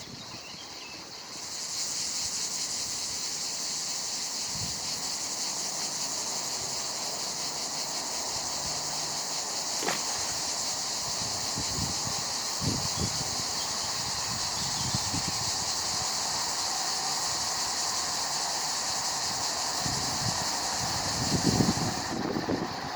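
Cicada buzzing steadily and high-pitched; it starts about a second in and stops abruptly near the end. A few dull knocks are heard under it.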